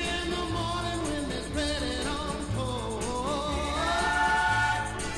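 Background song: a singing voice carrying a melody over a steady, repeating bass line.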